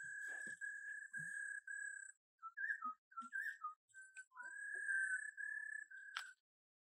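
Puppy whining: high-pitched drawn-out cries, broken into several stretches with short breaks and a few short wavering whimpers in the middle, with a sharp click near the end.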